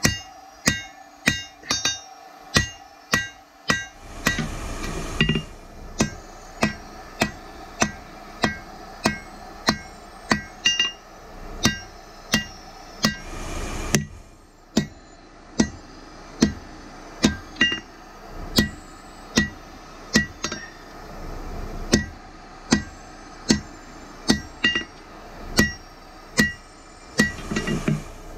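Hand hammer forging a red-hot steel sword blade on an anvil, about two blows a second, each blow followed by a bright metallic ring from the anvil and blade. A short hiss sounds three times between the blows.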